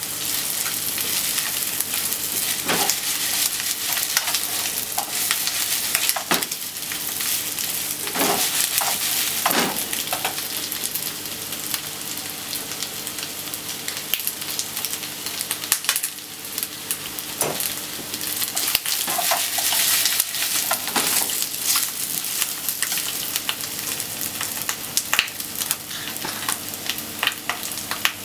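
Marinated chicken pieces sizzling and crackling in hot oil in a nonstick frying pan, stirred and turned with wooden chopsticks a few times.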